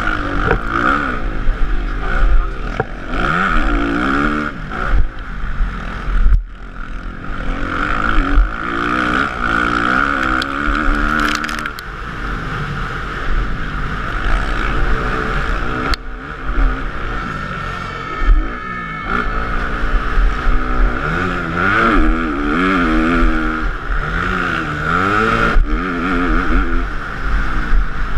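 Motocross bike engine heard from the bike itself, revving up and dropping back again and again as the rider accelerates out of corners, shifts and closes the throttle, with a brief lull about six seconds in.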